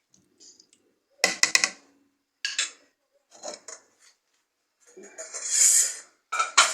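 A spoon knocking and scraping against a cooking pot as chicken pieces are stirred in sauce: a few separate clusters of clinks, with a longer scrape near the end.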